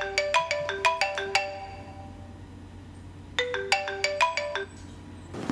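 iPhone alarm ringing with its marimba tone: a quick run of bright mallet notes, then the same phrase starting again about three and a half seconds in and cut off short about a second later as the alarm is silenced.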